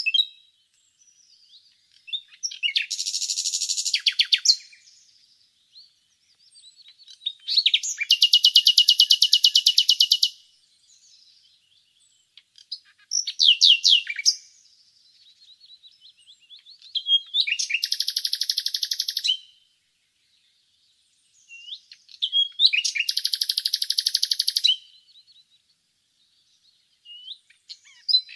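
Nightingale singing: five phrases of fast, rapidly repeated high notes, each lasting a second or two, separated by pauses of a few seconds.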